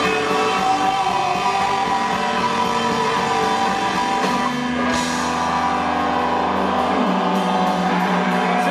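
Live rock band with electric guitars, bass, drums and keyboard playing at full volume through the venue PA. About four seconds in the playing gives way to a sustained ringing chord, with one crash about a second later.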